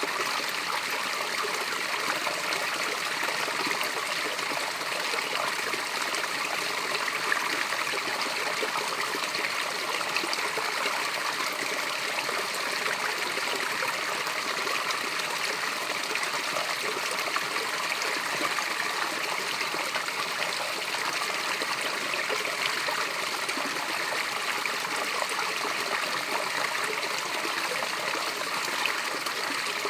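A natural water cascade running steadily: an even rush of falling water with fine splashing and trickling, and hardly any deep rumble.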